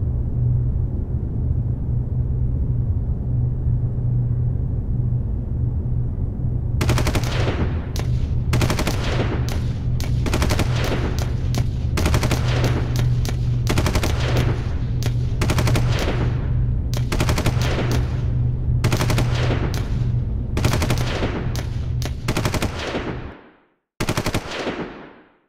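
A steady low hum, joined about seven seconds in by repeated bursts of rapid-fire shots, like machine-gun fire, coming one after another until the sound cuts out near the end.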